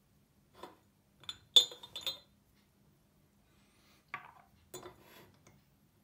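Glazed ceramic lid of a stovetop coffee maker's pot clinking as it is lifted off and set down on a stone countertop: a few light clinks, the loudest about one and a half seconds in with a short ring, then softer taps between four and five seconds in.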